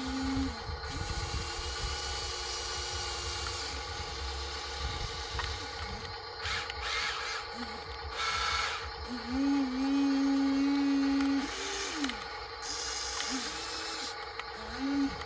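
Small electric gear motors of a radio-controlled Huina construction toy whining in short runs that start and stop again and again, the pitch gliding up as each starts and down as it stops. The longest and loudest run comes a little past the middle.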